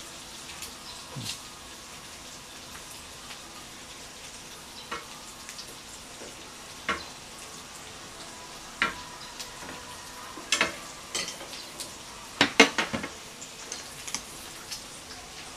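Pork belly sizzling steadily on a tabletop grill. Scattered sharp clicks and clatters of utensils against the grill and dishes break in now and then, thickest and loudest about ten to thirteen seconds in.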